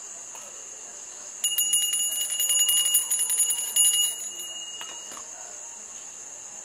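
Small hand-held puja bell rung rapidly during an evening lamp offering. It starts about a second and a half in, rings for about three seconds, then stops, and the last ring fades away.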